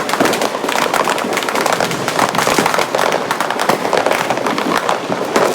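New Year firecrackers and fireworks going off all around in a dense, continuous crackle of rapid overlapping pops and bangs.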